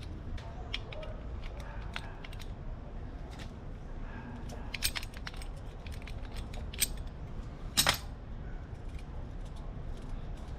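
Metallic clicks and clinks of hand tools and loose parts on a motorcycle carburetor as it is worked free from the engine. Sharper clinks come about five and seven seconds in, and the loudest about eight seconds in.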